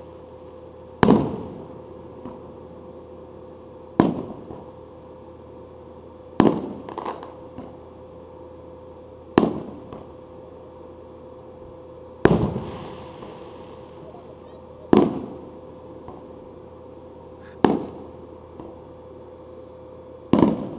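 Aerial firework shells bursting one at a time: eight sharp bangs, about one every three seconds, each trailing off in a rolling echo. A few bursts are followed by a short crackle.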